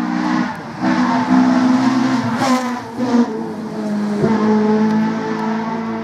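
Rally car engine revving hard, its pitch climbing and then dropping back several times as the driver changes gear or lifts off.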